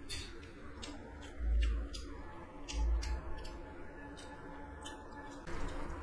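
Close-miked eating sounds: sharp mouth clicks and wet squishing of rice and curry gravy being mixed by hand. Two low thuds come about 1.5 and 3 seconds in.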